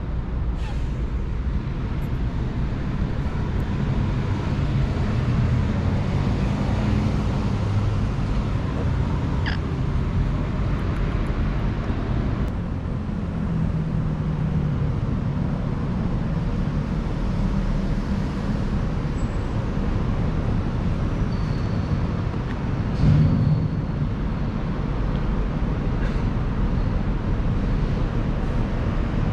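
A steady low rumble of background noise, with a brief louder bump about 23 seconds in.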